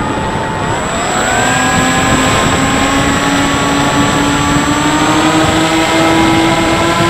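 Bixler 3 RC plane's electric motor and propeller whining over steady wind rush on the onboard microphone. The motor's pitch picks up about a second in and keeps climbing slowly as the motor speeds up.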